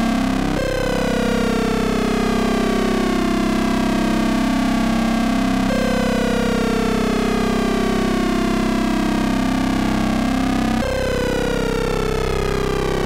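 Modular synthesizer drone: a ring-modulated waveform built from four oscillators, the Rossum Trident among them. Steady low tones sit under a set of higher partials that glide slowly downward, and the glide starts over about every five seconds.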